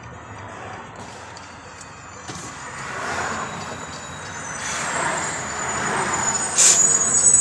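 Road traffic passing through a railroad crossing, heard from inside a car. About halfway through, the crossing's warning bells start ringing and grow louder as the gates come down, with a sharp clack near the end.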